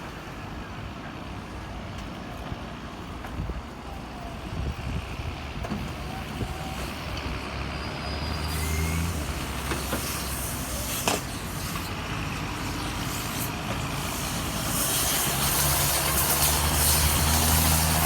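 A large vehicle's engine running, getting louder in the second half, with a strong hiss over it in the last few seconds and a single sharp click about halfway through.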